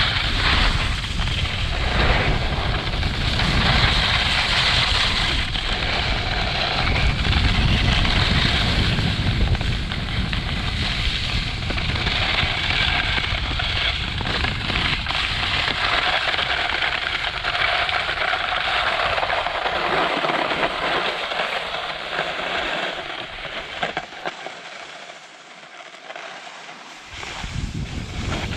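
RVL8 Blunt XL skiboards sliding and scraping over groomed snow, with wind rumbling on the camera microphone as the rider descends. Near the end the sound drops away for a few seconds, then picks up again.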